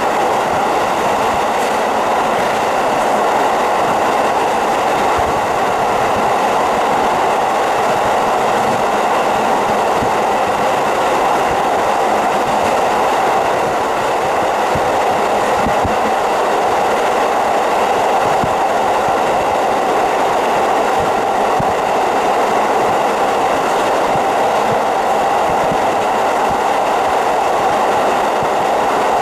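KiHa 40 diesel railcar running along the line, heard through a fully opened window: a steady, loud rumble of wheels on the rails mixed with rushing air.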